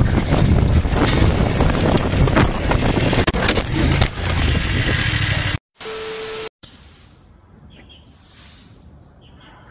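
Heavy wind buffeting on the microphone of a moving rider's camera, with a few knocks about three to four seconds in as the camera goes down. It cuts off abruptly a little past halfway, followed by a short steady beep and then quiet outdoor ambience.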